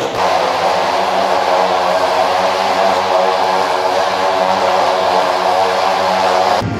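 Motorcycle engine running steadily inside a steel-mesh globe of death, a constant buzzing drone that cuts off suddenly near the end.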